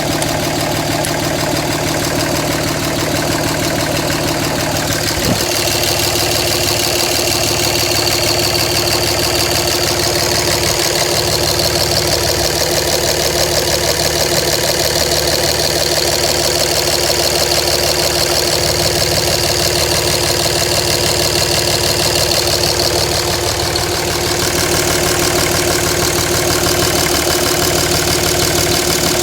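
2007 Dodge Ram's 5.9 Cummins inline-six turbodiesel idling, running with what the owner calls a rough idle. A brief click sounds about five seconds in, and a steady high whine runs along with the engine for much of the time after it.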